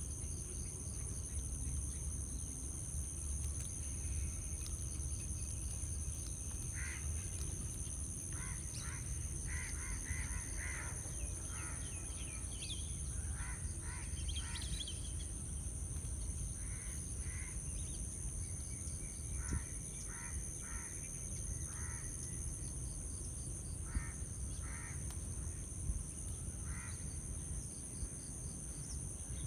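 Outdoor ambience: a steady high-pitched insect drone over a low rumble, with birds giving short calls in repeated clusters from several seconds in.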